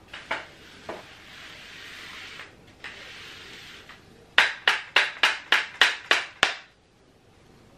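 Flat, bendable microfiber gap dust cleaner pushed along the floor under metal wire shelves: a couple of light knocks, a stretch of soft rubbing, then a quick run of about eight sharp strokes, some four a second, as it is worked back and forth.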